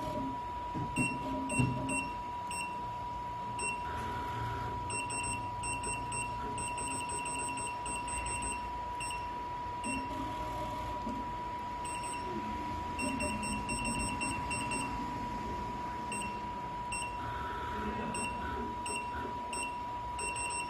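Programmable pattern sewing machine stitching out a straight-line pattern: a steady high whine with runs of rapid, evenly spaced ticking that start and stop several times.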